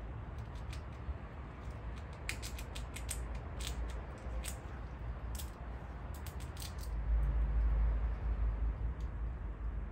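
A quick, irregular run of small sharp clicks over a steady low rumble, which swells briefly after the clicks stop.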